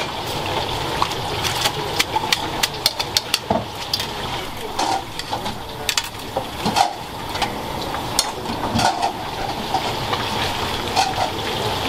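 Busy soba-shop kitchen: a steady hiss and hum with many quick clinks and knocks of dishes and utensils, thickest in the first few seconds.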